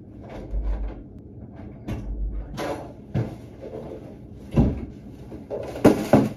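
Irregular knocks and clunks of someone moving about a small room, with a couple of dull thumps early on and the loudest clunks near the end.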